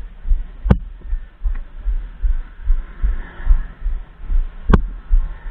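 Low, even throbbing about twice a second from a motorcycle as it moves off and rides along, picked up by the rider's action camera. Two sharp knocks come through, one about a second in and one near the end.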